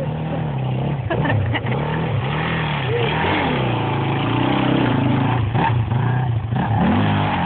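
Dirt bike engine revving close by as it rides over muddy ground, its pitch rising and falling again and again as the throttle is opened and closed.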